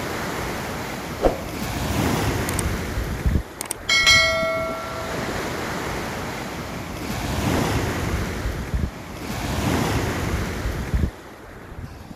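Sea surf washing in and out, the rush swelling and fading every couple of seconds. A click comes about a second in, and a short bright bell-like ding about four seconds in.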